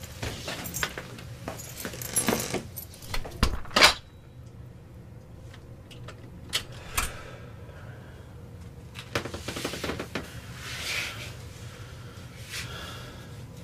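Keys jangling and metal rattling, then a heavy cell door shut with a loud clank just before four seconds in. After it come a few scattered clicks and soft rustling.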